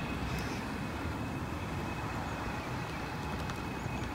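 Steady low rumble of outdoor background noise, with a faint thin whine that fades out about three seconds in.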